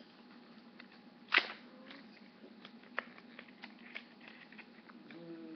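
Plastic candy wrapper crinkling as it is handled, with one sharp crackle about a second in and fainter clicks after, over a faint steady room hum.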